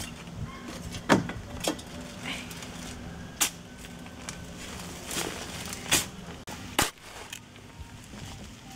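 Long-handled hoe chopping and scraping into stony red earth, with loose soil and clods falling away: about six sharp, irregular strikes, the loudest about a second in.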